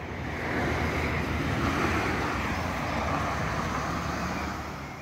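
A car passing along the road: tyre and engine noise swells up, holds, and fades away near the end.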